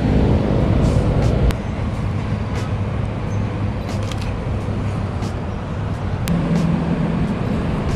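Steady rumble of road traffic, with a few sharp clicks. A pitched engine-like hum in the first second and a half cuts off suddenly.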